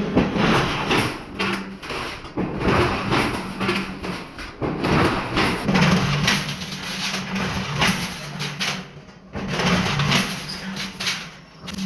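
Metalworking machinery in a small instrument workshop: a motor hum that comes and goes under a rapid, irregular series of sharp metal strikes, several a second.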